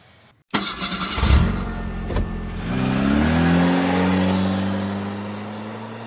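A well-drilling rig's engine revs up and holds a steady higher speed under a loud rush of gushing water. The sound starts suddenly about half a second in and fades toward the end.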